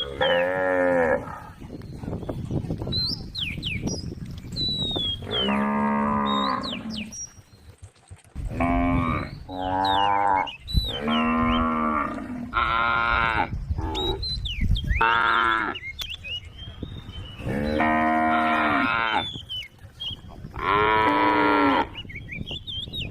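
Cows mooing over and over: about ten long, drawn-out calls at varying pitches, some overlapping one another.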